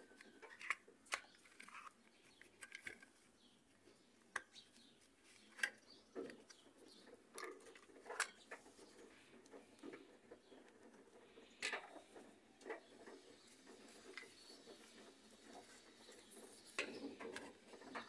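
Faint, scattered small clicks and taps of hard plastic parts being handled: the cam disc and loose pieces of an opened Maytag washing-machine timer. The clicks are irregular, a few seconds apart.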